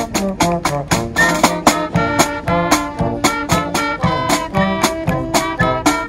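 Swing-style jazz music with brass instruments over a steady, quick beat.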